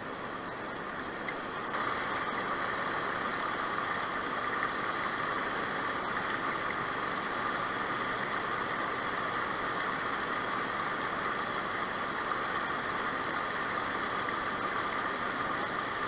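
Shallow river water running over stones in a low-flow riffle, a steady rushing hiss that grows louder about two seconds in.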